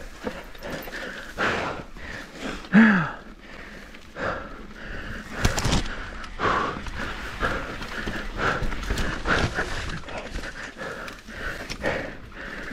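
Mountain bike riding down a dirt singletrack: tyres on dirt and the bike rattling over bumps in irregular bursts, with the rider's hard breathing and a sharp knock about five and a half seconds in.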